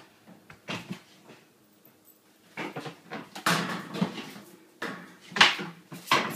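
Irregular knocks and clattering of things being bumped and shifted on closet shelves as a pole is worked among them, sparse at first and busier from about halfway, with one loudest bang near the end.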